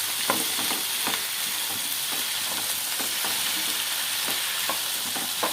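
Onions and chopped tomatoes sizzling in groundnut oil in a kadai as they are stir-fried, with a steady frying hiss and scattered short clicks and scrapes of the utensil against the pan.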